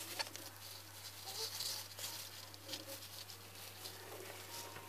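A golden hamster's small sounds: a scatter of short soft clicks and brief rustles.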